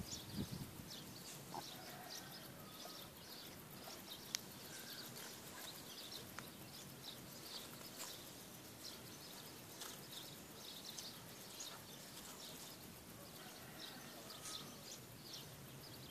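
Faint mews from a young kitten being handled, over many short high chirps of birds in the background.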